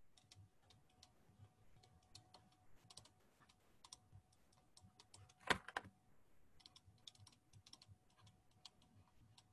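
Faint, irregular clicks and taps of a stylus on a writing tablet during handwriting, with one louder knock about five and a half seconds in.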